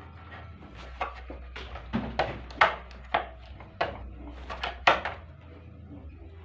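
Hard plastic and metal parts clicking and knocking as a split air conditioner's indoor blower motor is worked loose and removed. About a dozen sharp, irregular knocks, the loudest two about two and a half and five seconds in.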